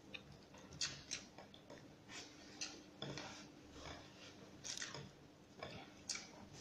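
Quiet sounds of a person eating rice with her fingers: an irregular scattering of small clicks and wet smacks from chewing and from fingers working the rice on the plate.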